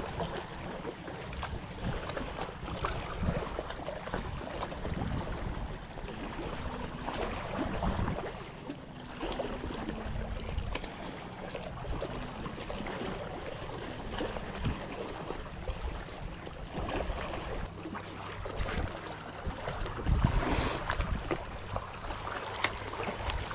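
Small sea waves lapping and sloshing against shoreline rocks, with wind buffeting the microphone and a brief louder rush near the end.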